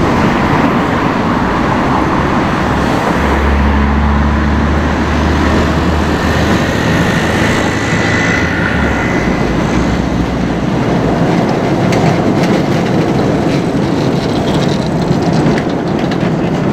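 Vintage tram running along street track, approaching and passing close, over steady city traffic noise. Sharp clicks from its wheels on the rails come near the end as it passes.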